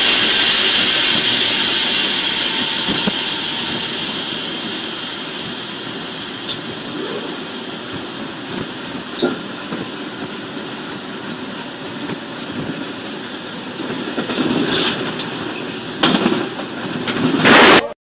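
Moving locomotive heard from its cab: a steady rush of engine, wheel and rail noise that slowly fades, with a few knocks. Two loud bursts of noise come near the end, and the sound cuts off abruptly.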